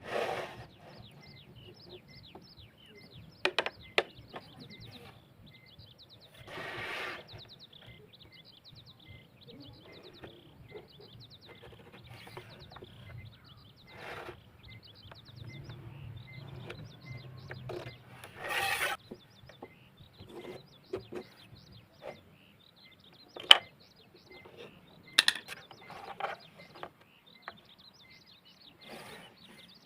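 Hand woodworking: a few sharp knocks on wood and short scraping strokes, over steady rapid chirping in the background.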